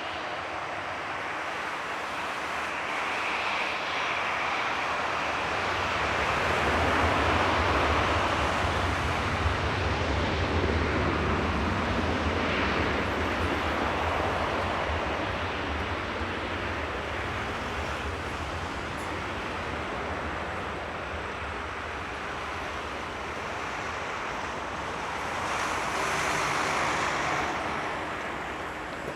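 Boeing 737-800's twin CFM56 jet engines at takeoff thrust: a deep, broad roar that swells several seconds in, holds, then slowly fades, with a shorter swell near the end.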